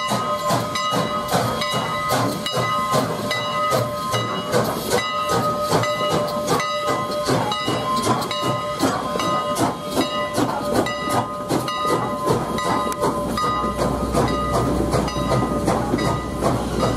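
Steam locomotive hauling a passenger train past at close range, with steam hiss and evenly spaced chuffing beats under a steady ringing tone. About thirteen seconds in the ringing stops and the deep rumble of the passenger cars rolling by takes over.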